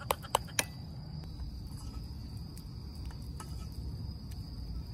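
Crickets chirring in a steady high trill, with three sharp clinks of a spoon against a metal cooking pot in the first second and a few fainter clicks after.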